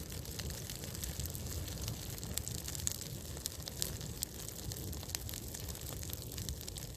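A small campfire crackling, with scattered sharp pops and ticks over a low, steady rumble.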